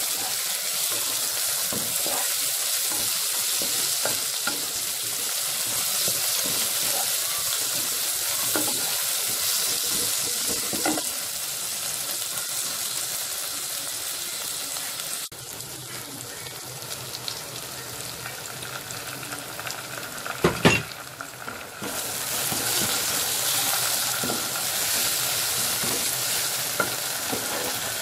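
Chopped onions and tomatoes sizzling as they fry in a pan, stirred with a wooden spatula. The sizzle drops away a little past halfway and comes back a few seconds later, with one sharp knock just before it returns.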